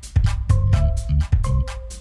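Background music with a steady beat: drum hits over a bass line, with short melody notes on top.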